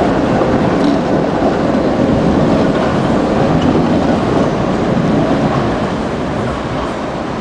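Tatra KT4D tram running past on its rails, a steady wheel-and-track running noise that eases off after about five and a half seconds as it moves away.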